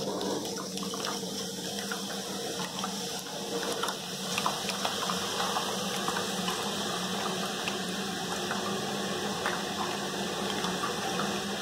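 Kara boondi batter dripping into hot oil in an aluminium kadai, the drops sizzling and bubbling steadily as they deep-fry.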